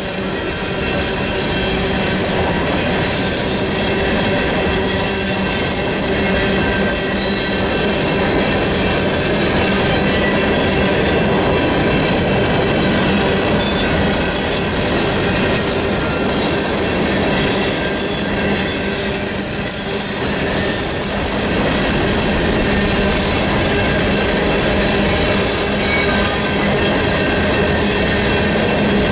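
Loaded freight cars of a rock train rolling steadily past at a grade crossing: a continuous rumble and clatter of steel wheels on the rails, with high-pitched wheel squeal that comes and goes.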